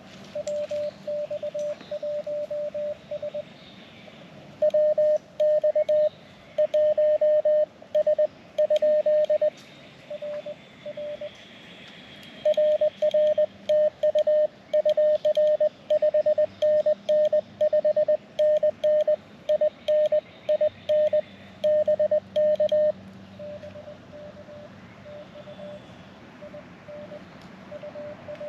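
Morse code (CW) from an amateur radio: a single steady tone of about 600 Hz keyed on and off in dots and dashes over a faint hiss. The keying is softer near the start and again near the end, and much louder in between.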